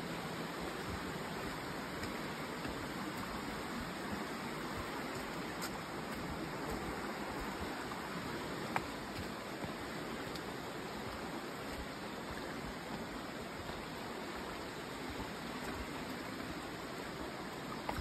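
Steady rushing of a nearby stream, with one short click about nine seconds in.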